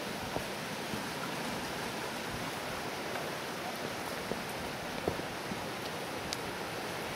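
Steady rush of a creek flowing over rocks, with a few faint clicks now and then.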